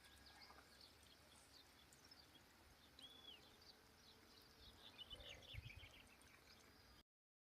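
Faint scattered bird chirps over near-silent outdoor ambience, with a brief soft low rumble about five seconds in; the sound cuts off to dead silence about seven seconds in.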